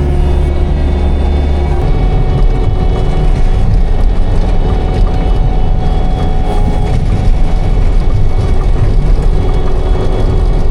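Manitou skid loader's diesel engine running. It runs evenly for the first two seconds or so, then turns rougher and more uneven.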